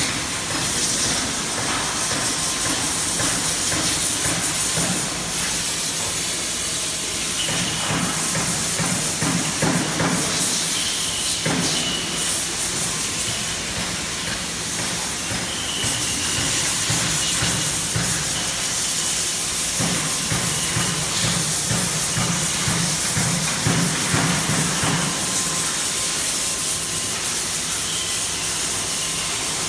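CNC router with a carousel automatic tool changer running: a steady hiss throughout, with stretches of low rumble from about 7 to 11 seconds in and again from about 20 to 25 seconds in. A few sharp knocks and a faint high whine come and go.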